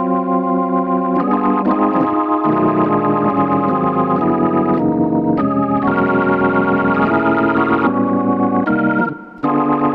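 Software organ preset with distortion and a rotary-speaker effect, playing sustained chords that change every second or so. The tone warbles in places and breaks off briefly near the end.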